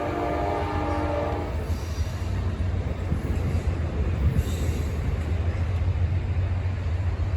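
Amtrak train's horn sounding as several steady tones at once, cutting off about a second and a half in, over the steady low rumble of the passing train.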